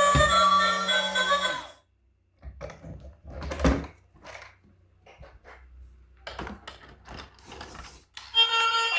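Background music that stops about two seconds in, followed by a few seconds of scattered clicks and knocks, with the music coming back near the end.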